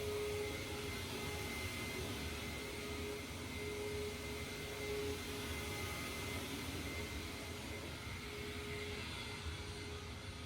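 Hoover WindTunnel Supreme upright vacuum cleaner running steadily, a whooshing airflow with a motor whine that swells and fades a little.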